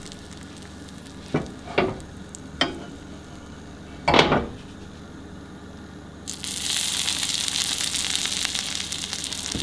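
Hot basting butter sizzling on a freshly seared steak, with a few short pops early on; about six seconds in the sizzle turns suddenly much louder and steadier.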